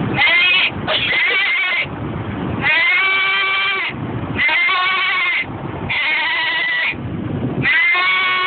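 A person imitating a goat: about six quavering bleats, each roughly a second long, with a low steady car road rumble between them.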